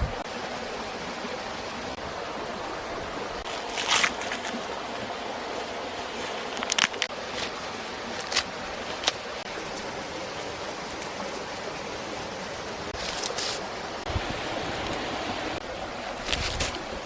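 Steady rushing background noise, broken by a few short sharp clicks and rustles about four, seven, eight and nine seconds in and twice more near the end.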